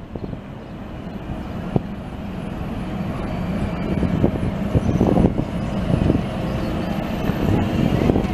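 Electric Translohr rubber-tyred guided tram approaching on its guide rail, a low rumble of running gear that grows steadily louder as it nears, with a few sharp knocks.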